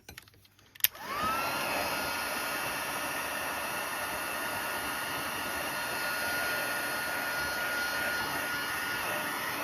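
Heat gun for embossing switched on with a click about a second in, its motor spinning up with a rising whine that settles into a steady tone over the blowing fan noise, then running steadily.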